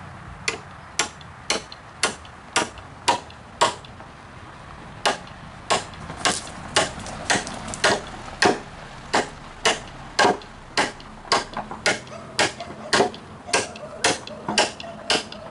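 Small sledgehammer striking a steel swing hanger bolt, driving it down into a pressure-treated yellow pine beam. The blows are steady, about two a second, with a short pause about four seconds in.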